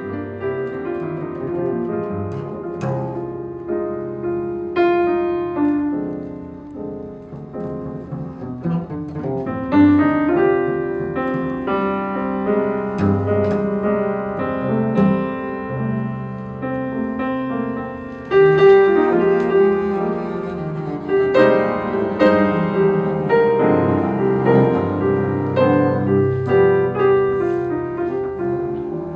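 A live piano trio playing: piano carrying the music, with double bass beneath it. The playing gets louder about ten seconds in, and again more sharply at about eighteen seconds.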